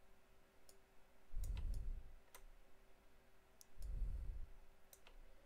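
Computer mouse clicking, about eight sharp separate clicks, as a webcam overlay is dragged and resized on screen. Two brief low rumbles, about one and a half and four seconds in, are the loudest sounds, over a faint steady hum.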